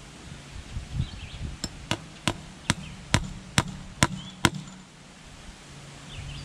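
Hammer driving fence staples into a wooden fence post to hold the line wires of woven fencing: a run of sharp metal-on-metal strikes, about two a second, stopping about halfway through.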